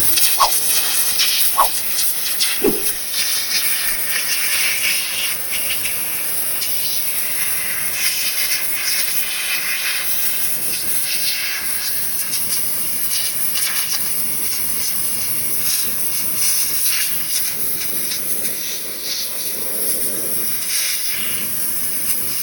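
Pressure washer with a needle nozzle, its narrow high-pressure water jet blasting weeds out of paver joints: a loud steady hiss of spray that starts abruptly.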